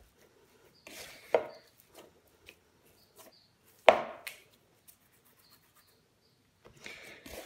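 Hands kneading and pressing a soft butter-and-flour dough in a bowl as it starts to come together: soft rubbing and patting with a few sharper knocks, the loudest about four seconds in.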